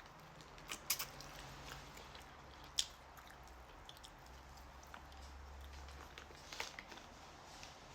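A person chewing food with soft, wet mouth sounds, broken by a few sharp clicks, the loudest about one second in and near three seconds.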